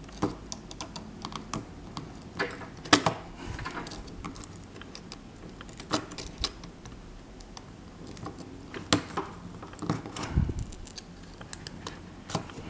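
Irregular small clicks and scrapes of a thin pry tool working at the taped-down battery pack and plastic case of an opened Palm M515 PDA, with a duller bump about ten seconds in.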